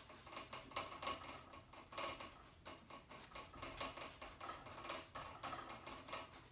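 Paintbrush scrubbing and blending acrylic paint on a stretched canvas: faint, scratchy strokes in quick succession, several a second.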